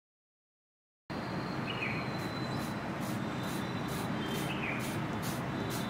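Outdoor ambience that starts abruptly about a second in: steady background noise, with insects chirping in a regular pulse about twice a second and a short bird chirp heard twice.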